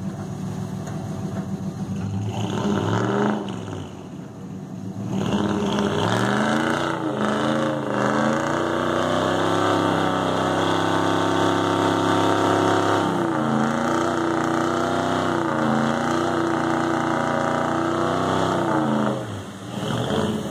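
Chevy pickup's engine revving hard while the truck sits stuck in deep mud on a tow strap. The revs rise about two seconds in, dip briefly, climb again and hold high for several seconds, step down, then drop away near the end.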